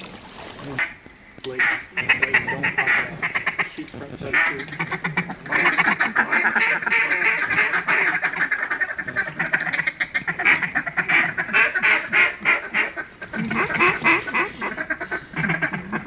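Ducks quacking: a long, fast run of quacks and chatter that starts about a second in, with two short breaks.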